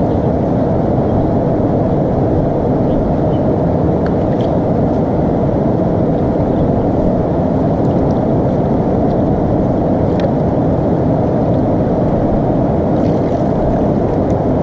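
Steady rushing of a stony mountain river flowing over rocks, a loud even noise without a break, with a few faint ticks.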